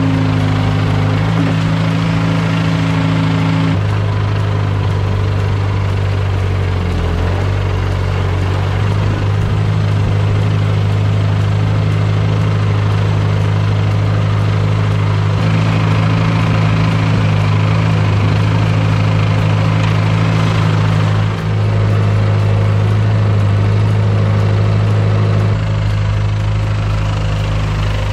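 1963 Ford 2000 tractor engine running steadily while the tractor plows snow with its front loader bucket, heard from the driver's seat. Its note shifts several times, about 4, 15 and 21 seconds in, as throttle and load change.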